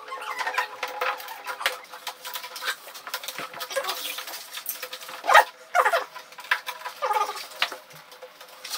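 Small scratchy clicks and scrapes of electrical cable and a hand tool being worked at a metal wall back box, with a few louder knocks about five to six seconds in.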